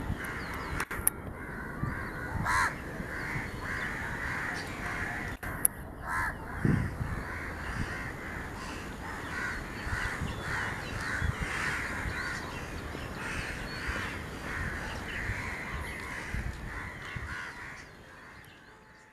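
Birds calling continuously, a dense run of calls over a low rumble, with a few sharp clicks in the first few seconds; the sound fades out near the end.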